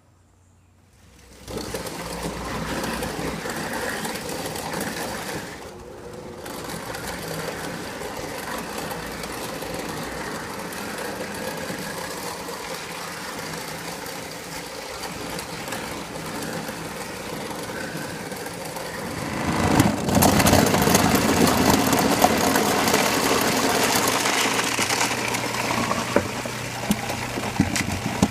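Garbage disposal used as an apple scratter, its motor running steadily and grinding apples into pomace. It comes in about a second and a half in, and the grinding gets louder and rougher about two-thirds of the way through.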